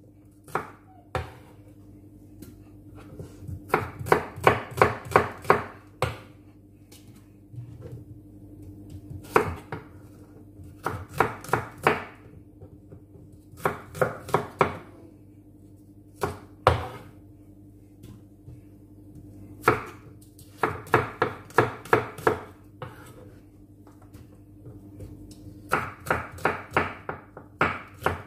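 Kitchen knife chopping small fresh onions on a wooden cutting board, in quick runs of about four strokes a second broken by short pauses. A faint steady hum runs underneath.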